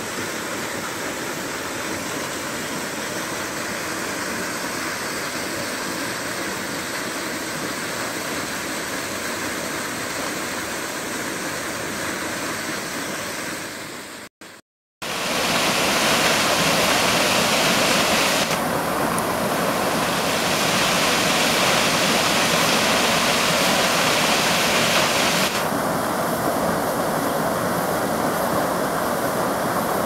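Waterfall rushing steadily into a rocky pool. After a brief cut about halfway, the water is heard up close, louder, as it crashes onto the rocks at the foot of the fall.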